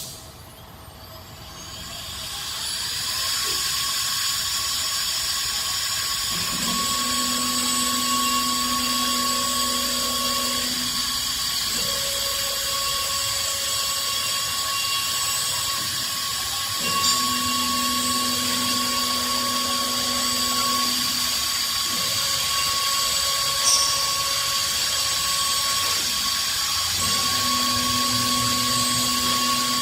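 CNC wood lathe running: a motor spins up over the first few seconds to a steady high whine over a hiss of cutting. A lower motor tone switches on and off every few seconds as the machine works through its cycle, with a couple of short clicks.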